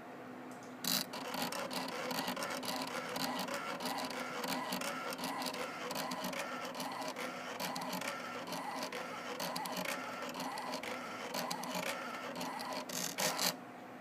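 Miniature CNC built from CD-ROM and floppy drive stepper mechanisms running: a stepper-motor whine that shifts in pitch as the axes move, with rapid clicking. It starts about a second in and stops abruptly just before the end.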